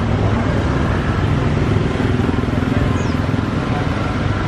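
Twin-turboprop aircraft in flight, its engines and propellers a steady, loud drone with a low hum.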